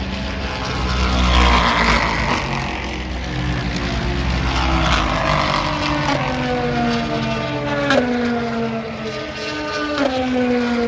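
Several race cars passing at speed in quick succession, roughly one every two seconds, each engine note dropping in pitch as the car goes by; the loudest pass comes about one and a half seconds in.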